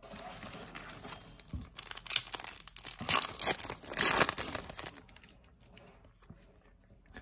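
Foil wrapper of a Yu-Gi-Oh booster pack being torn open and crinkled in the hands. The crackling comes in several loud bursts over the first five seconds, then fades to a faint rustle.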